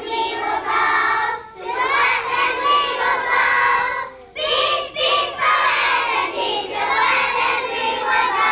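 A group of young children singing together in unison, in phrases with short breaks.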